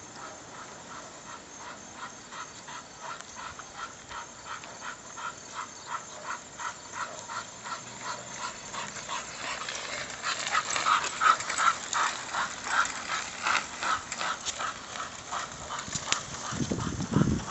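Dogs panting hard in a quick, even rhythm of about three breaths a second as they pull a two-wheeled chariot. The panting grows louder about halfway through as the dogs come close, and there is a short low rumble near the end.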